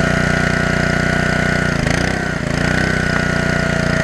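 Engine of the wood-splitting machine running steadily. About two seconds in it briefly drops in pitch as it takes a load, then picks back up.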